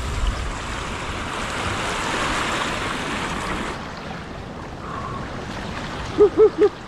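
Sea water washing and swirling over a rocky reef, with wind on the microphone, louder in the first half. Near the end come three short, loud cries in quick succession, each rising and falling in pitch.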